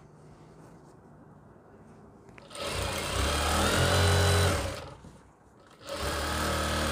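Jack industrial lockstitch sewing machine stitching a joining seam in a red gown panel, in two runs. It starts about two and a half seconds in and runs for about two seconds, stops briefly, then starts again about six seconds in.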